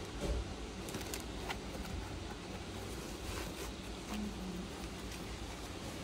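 Faint handling sounds from a sneaker and a small plastic bag of spare laces being turned in the hands: a few light clicks and rustles over a steady background hiss.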